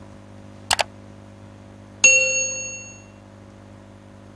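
Two quick clicks in a row, like a mouse double-click. About two seconds in, a Windows system alert ding sounds sharply and rings out over about a second.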